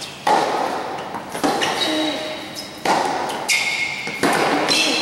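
Tennis rally: a ball struck back and forth by racquets, four sharp hits about a second and a half apart, each ringing on briefly under the covered court's roof.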